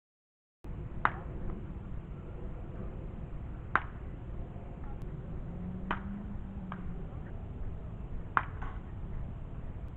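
Baseball bat hitting pitched balls in batting practice: four sharp cracks a few seconds apart, with a couple of fainter knocks between, over steady outdoor background noise. The audio drops out for about half a second at the start.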